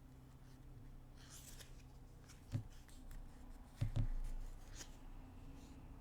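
Tarot cards being handled: a brief swish of cards about a second in, with scattered light clicks and a few soft knocks.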